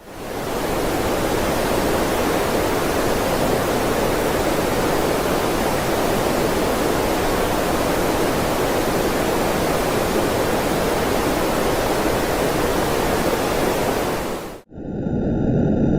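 Space-sound sonification track: a steady, even rushing noise like a waterfall, spread across all pitches and fullest in the lower middle. It cuts off sharply about a second before the end, where a different droning track with banded tones begins.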